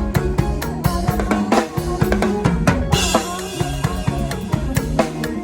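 Instrumental passage of Isan toei lam music: a drum kit keeps a fast, steady beat under sustained bass and melody notes.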